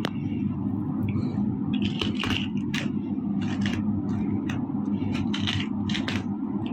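A small hairbrush being dragged through a fashion doll's stiff hair in short scratchy strokes, about two a second, over a steady low hum.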